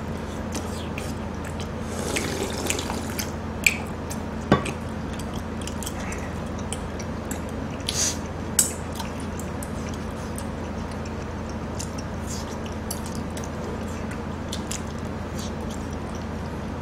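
Close-up eating sounds: wet chewing and slurping, with utensils clicking against dishes a few times, over a steady low hum.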